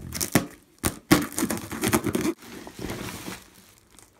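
Packing tape on a cardboard box being slit with a knife and torn open, with sharp cracks and then a longer stretch of crackling and tearing as the tape and flaps are pulled apart. Near the end a plastic bag inside rustles faintly.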